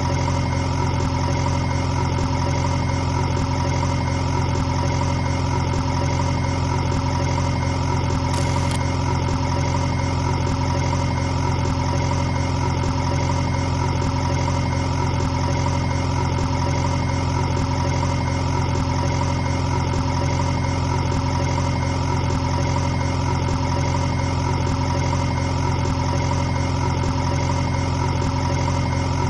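A motor running at a steady speed, giving an even, unchanging hum.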